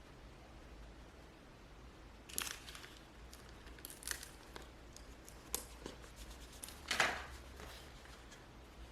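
Close handling sounds over a low room hum: a few soft rustles or crinkles, the loudest about seven seconds in, with scattered light clicks between them.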